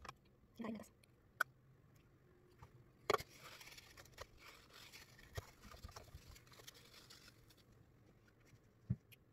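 Small handling noises around a bottle and a tray: a sharp click about three seconds in, then about four seconds of soft rustling and rubbing as the bottle is wiped with a tissue, with a few light knocks.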